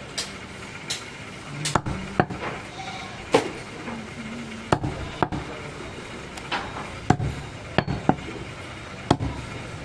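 Heavy butcher's cleaver chopping goat meat and rib bone on a wooden chopping block: about a dozen sharp chops at uneven intervals, roughly one or two a second.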